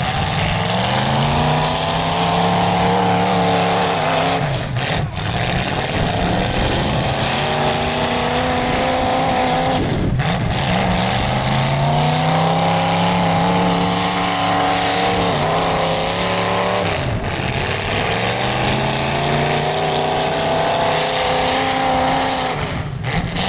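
Demolition derby car's engine revving hard, four times: each time it climbs, holds high for a few seconds, then drops back.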